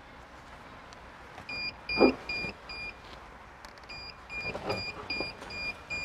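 Short, high electronic beeps in quick runs, about three a second: four, a brief pause, then about seven more. They come from a newly installed remote-start car alarm being tested. A thump about two seconds in and a few softer knocks sound alongside.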